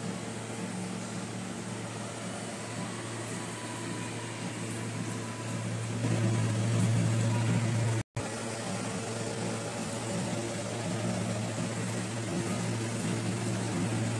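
Steady low hum of room ventilation, swelling a little louder for a couple of seconds, then cutting out for an instant about eight seconds in before it resumes.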